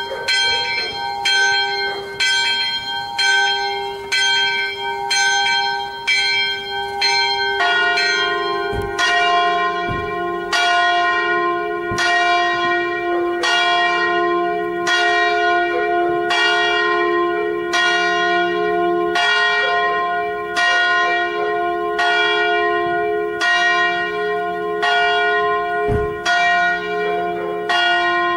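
Church bells ringing: a small bell strikes quickly, about twice a second, then about eight seconds in a deeper, larger bell takes over, striking about once every second and a quarter with a lasting hum between strokes. A few sharp knocks from the bell mechanism come between strokes.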